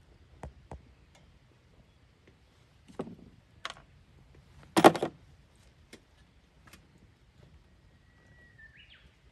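Scattered metallic clicks and clinks of rusty forklift drum-brake parts and tools handled by hand, with the loudest clatter about five seconds in.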